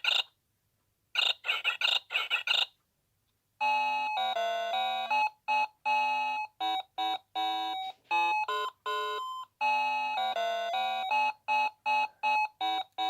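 Noah Precision Fruity Melody alarm clock sounding its electronic alarm: a quick string of warbling chirps, about four a second, then after a short pause a simple beeping tune of separate electronic notes.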